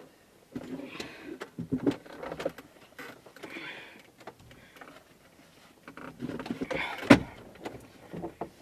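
Scattered clicks, rattles and rustles of hands working inside a car that will not start, with a sharp knock about seven seconds in; no engine turns over.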